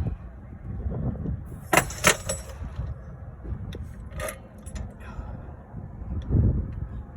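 Metal clanks and clinks from a car jack and its handle as the car is lowered after a tyre change: two sharp, ringing clanks about two seconds in and another near the middle, over a steady low rumble.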